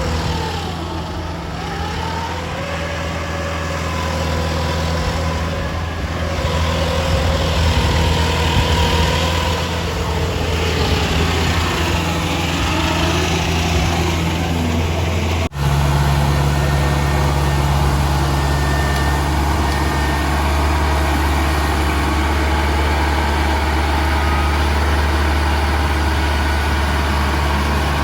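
Kubota DC-70G combine harvester's diesel engine running steadily, with a higher tone wavering above it in the first half. A little past halfway the sound cuts abruptly to the engine at a different pitch.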